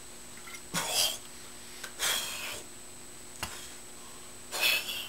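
A man swigging from a glass bottle, with three short breathy sounds of gulping and exhaling about a second apart. There is a single light knock between the second and third.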